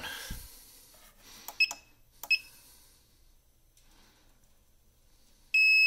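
SMA Sunny Island inverter's control panel beeping as its keys are pressed: two short high beeps with clicks about a second and a half and two seconds in. Near the end, with the Enter key held to start the inverter, a loud steady beep begins.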